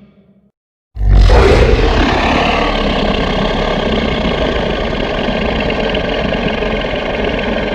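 Designed film-monster roar layered from creature sound effects: it starts suddenly about a second in, loudest at the onset with a short falling pitch, then holds as one long, rough, steady roar.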